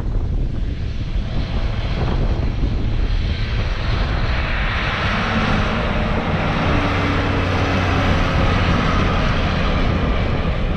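Combine harvester engine running steadily, with the harvesting machinery's hiss and wind noise. It grows louder about four seconds in as the machine draws closer.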